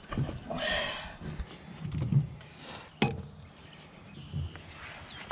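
A few sharp knocks with some scraping and shuffling in between, from work on the machine; the sharpest knock comes about three seconds in and another near the end. Birds chirp faintly in the background.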